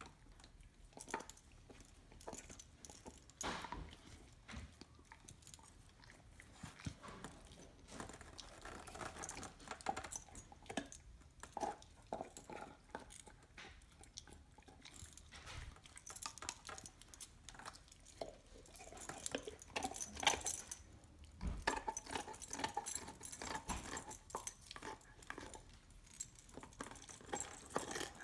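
Dog gnawing on a raw bone: irregular clicks, scrapes and crunches of teeth working the bone, busier in the second half, with a light metallic jingle from the tag on her collar.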